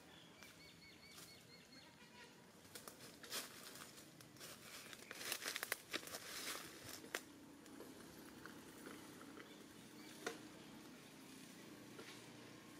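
Faint rustling and crackling, like leaves and twigs being moved, with a dense cluster of sharp crackles around the middle. A few faint high chirps come early on.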